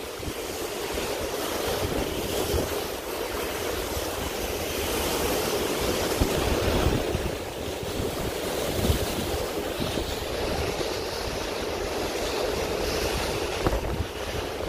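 Wind gusting on the microphone over a steady rush of water alongside a moving boat.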